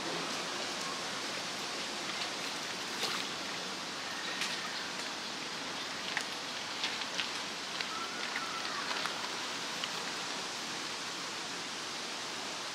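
Steady rushing of Danube river water at the shore, with scattered small ticks and splashes through the middle.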